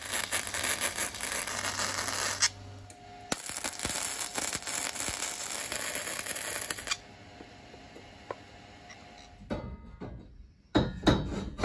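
Arc welding on steel pipe: two runs of steady welding crackle and sizzle, about two and a half and three and a half seconds long with a short break between. A few knocks follow near the end.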